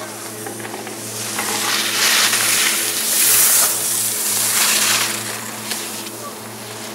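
Alpine skis carving giant-slalom turns on groomed snow: a hissing scrape that swells as the skier passes close, in several surges about a second apart as the turns go by, then fades. A steady low hum runs underneath.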